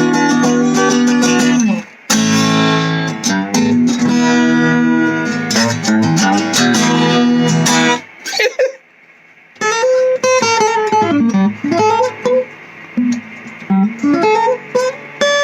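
Acoustic guitar with a freshly reglued bridge being play-tested: strummed chords ring for the first eight seconds. After a brief pause it moves to picked single notes that bend up and down in pitch.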